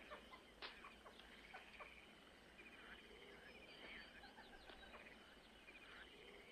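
Faint birds chirping: short, repeated high chirps over quiet outdoor ambience.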